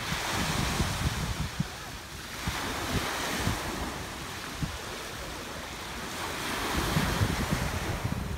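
Small sea waves breaking and washing up on a sandy beach, the surf swelling and easing every few seconds, with wind rumbling on the microphone.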